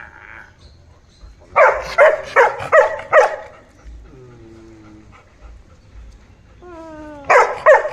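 Golden retriever barking: a quick run of about five barks about a second and a half in, then falling whines, then another run of barks near the end.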